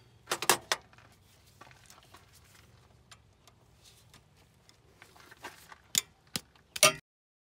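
Sharp metal clicks and clanks of a long wrench being fitted and worked on a rusted bolt of a clutch slave cylinder: a quick cluster of clicks just after the start, then a few more near the end.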